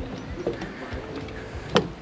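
Footsteps knocking on the wooden plank deck of a footbridge at a walking pace, one knock much louder near the end.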